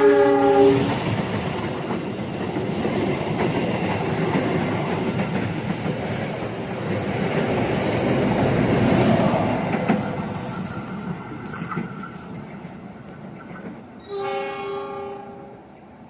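Argo Wilis express train passing at speed. Its horn chord cuts off about a second in, then comes the rumble and clickety-clack of the carriages on the rails, fading after about ten seconds. A second, shorter horn blast sounds near the end.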